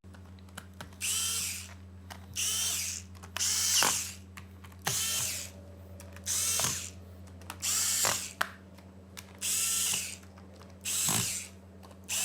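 Electric precision screwdriver driving the bottom-cover screws back into a Dell 3100 Chromebook: eight short whirring runs, each about a second long, with the motor's pitch rising and falling in each run.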